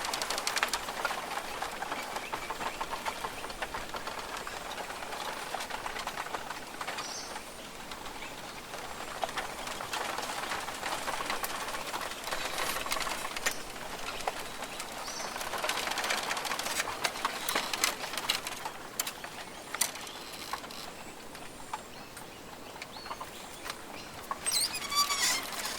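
Rainforest ambience: dense rustling and crackling, with a few short bird calls scattered through it and a brief burst of high squeaky calls near the end.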